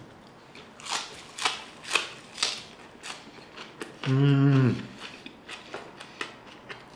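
A person chewing a crunchy mouthful of crisp pan-fried shemaya fish with fresh herbs, with several loud crunches in the first two and a half seconds. A little past the middle comes a short hummed "mmm" of enjoyment, then a few faint chewing clicks.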